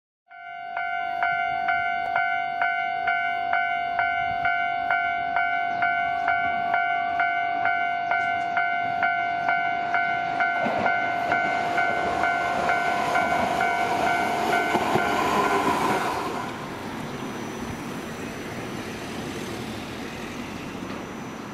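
Level-crossing alarm bell ringing with a steady tone about twice a second, stopping about 16 seconds in. Under it the running noise of a Toden Arakawa Line 7000-series tram with nose-suspended traction motors grows and carries on after the bell stops.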